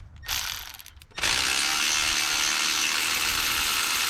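Power ratchet with a 5/8 spark-plug socket running, breaking loose and spinning out a spark plug on an LS 4.8 V8. A short blip first, then about three seconds of steady running that stops abruptly.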